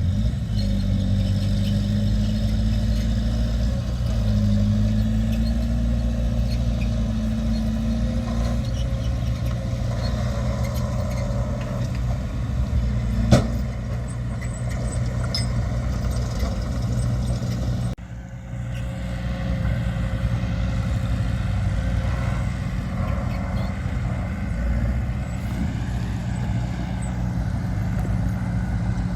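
Diesel engines of heavy earthmoving machinery running steadily, their pitch wavering over the first several seconds. There is one sharp knock about thirteen seconds in and a sudden brief dip in the sound about eighteen seconds in.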